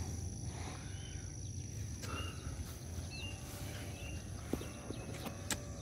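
Outdoor field ambience: low wind rumble on the microphone, with several short, high bird chirps scattered through it and a couple of faint clicks.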